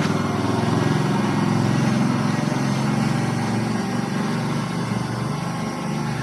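Small brushless-motor quadcopter drone hovering, its propellers giving a steady buzzing hum of several close-pitched tones that shifts a little in pitch as the motors work against the wind.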